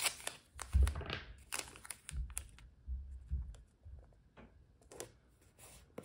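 Washi tape and paper being handled on a planner page: a run of small clicks, crinkles and taps, with a dull thump about a second in.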